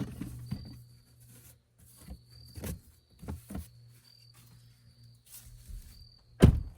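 Insects trilling in short repeated bursts, with scattered rustling and clicking and one loud thump near the end.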